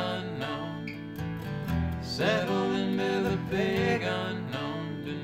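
Live country-style band music led by strummed acoustic guitar, with sustained and sliding pitched notes over it.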